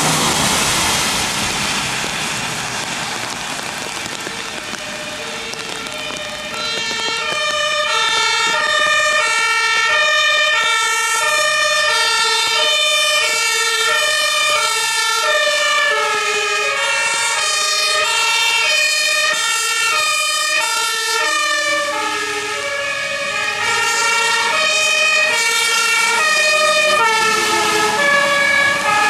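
A passing ambulance's tyres hissing through water on a wet road. Then German two-tone emergency sirens come in from fire engines on call, alternating between a high and a low note, with more than one siren sounding over each other. Near the end the siren pitch drops as the turntable ladder truck passes.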